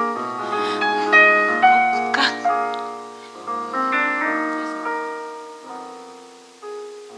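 Solo upright piano playing a slow, lyrical passage of sustained chords under a melody, the notes ringing into one another; the phrase, heard as a musical question, dies away about five to six seconds in before a new note enters near the end.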